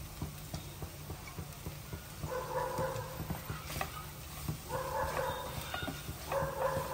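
Wooden spatula stirring and lightly scraping shredded chicken in a nonstick frying pan, with faint clicks over a steady low hum. About two seconds in, three drawn-out whining calls of about a second each begin and are the loudest thing heard.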